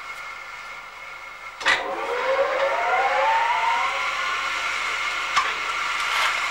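Belt-driven cooperage machine with a large flywheel running with a steady whine. A sharp clank comes about a second and a half in, followed by a second whine that rises in pitch over about two seconds, and there is a lighter click near the end.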